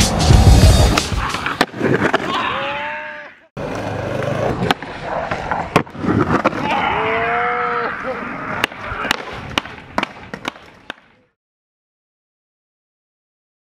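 Skateboard wheels rolling on pavement, with sharp clacks of the board popping and landing. Everything cuts off about eleven seconds in, leaving near silence.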